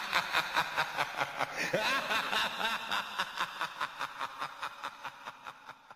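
A person laughing in quick, even bursts of about four or five a second, fading out toward the end.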